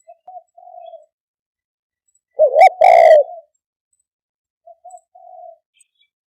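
Spotted dove cooing: one loud two-part coo about two and a half seconds in, with a short note followed by a longer one. Softer, shorter coos come near the start and again about five seconds in.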